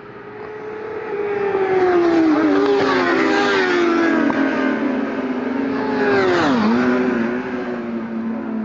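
Several track-day motorcycles going past at high revs, one after another, each engine note dropping in pitch as it passes. The last passes close about six and a half seconds in, with a sharp fall in pitch.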